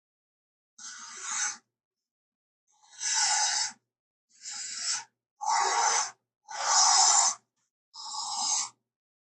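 A person imitating a bear with the voice: six short, breathy, rasping huffs, one after another with pauses between, the loudest near the end.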